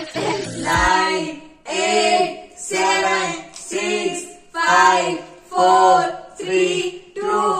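Background music: a high voice singing short, evenly spaced notes, about one a second.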